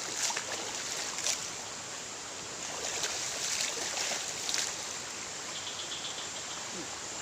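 Steady rush of flowing river water, with a few short light clicks or splashes about a second in and again around three to four and a half seconds in.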